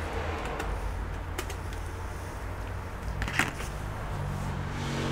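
A few small handling clicks over a steady low hum, the sharpest click about three and a half seconds in, then a low humming tone coming in near the end.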